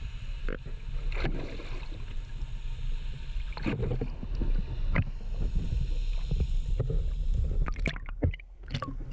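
Muffled underwater noise as a hooked red sea bream is reeled up: a steady low rumble with water rushing, broken by several short knocks and splashes, one near the middle and a cluster near the end.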